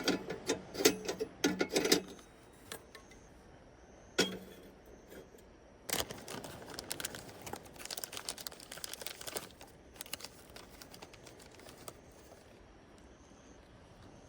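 Objects being handled, clicking and knocking: a tight cluster of knocks in the first two seconds, a single knock at about four seconds, then a run of lighter clicks from about six to ten seconds.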